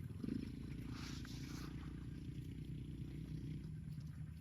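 A cow mooing: one long, low, steady moo lasting about three and a half seconds, ending a little before the end, over a constant low hum.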